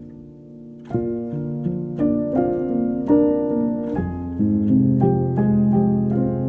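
Background piano music: a held chord fades for about a second, then notes are struck in a steady, flowing pattern.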